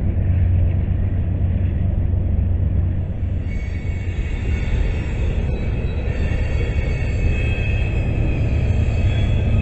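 Freight train cars rolling past: a loud, steady rumble of steel wheels on the rails. About three and a half seconds in, thin, steady high squealing tones join the rumble.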